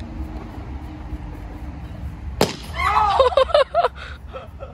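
A rubber party balloon bursts with one sharp pop about two and a half seconds in, followed by a short burst of excited voices without words.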